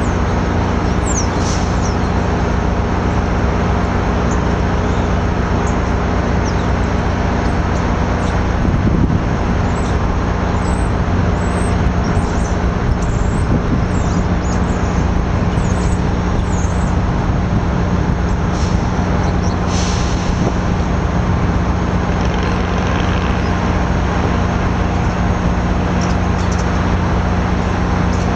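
Amtrak F59PHI diesel locomotive idling steadily, a constant low engine drone with a steady hum, with a few faint high squeals now and then.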